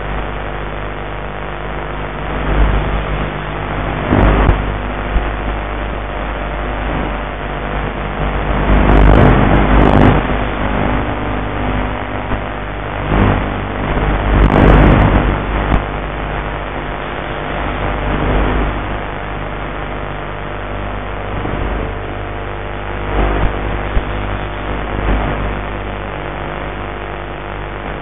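Onboard sound of a Mini Talon model plane in flight: its electric pusher motor and propeller run with a steady hum, while rushes of air noise swell and fade several times, loudest about a third and halfway through.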